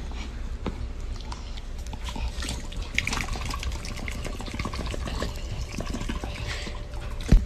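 Close, irregular wet clicking and rustling as a hand rubs a black puppy's face and chin, with one sharp click near the end.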